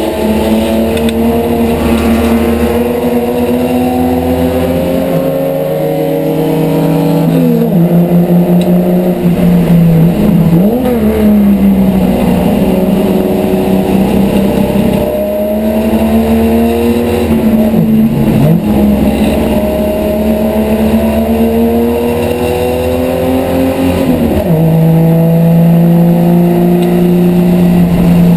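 Holden HQ race car's six-cylinder engine heard from inside the cabin under racing load. It climbs in pitch on each pull and drops back sharply several times as the driver changes gear or lifts for corners.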